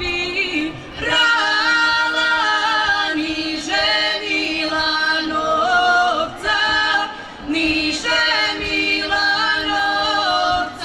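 Serbian women's folk singing group singing together without instruments, in short phrases of long held notes with brief breaks between them.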